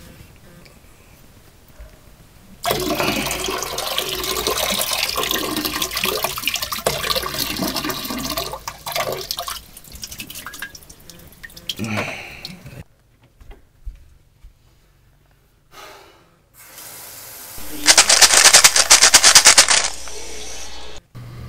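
Water running in household plumbing: a rush that starts about three seconds in and runs for about ten seconds, then stops, followed near the end by a second, shorter and louder rush.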